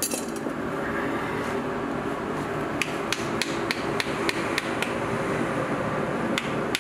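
Hammer tapping on metal in a forge: a quick run of light strikes at about four a second starting about three seconds in, a short pause, then a few more near the end, over a steady hum.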